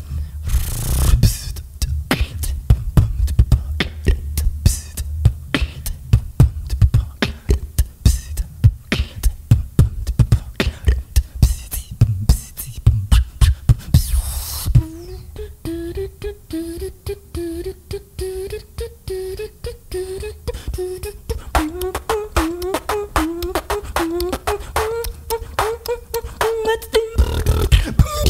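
Solo beatboxing into a handheld microphone: fast kick and snare hits over heavy bass, then about halfway a long hissing sweep, after which a pitched vocal line of short, repeated rising notes runs under the beat. A rising hiss comes near the end.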